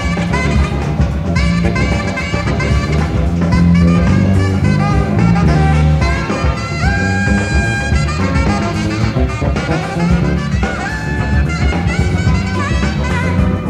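Live jazz-fusion band: saxophone and trumpet playing over electric bass and drums, with a high horn note held for about a second some seven seconds in.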